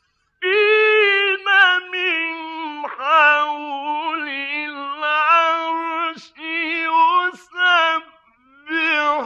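A male Quran reciter's solo voice chanting in the melodic mujawwad style: long, ornamented held notes with wavering pitch, broken by a few short breath pauses.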